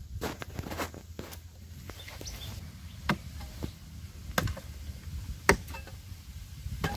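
Iron hoe blade chopping into the hard earth of a termite mound: a scrape and a few quick strokes at first, then single sharp blows about a second apart, the loudest a little before the end.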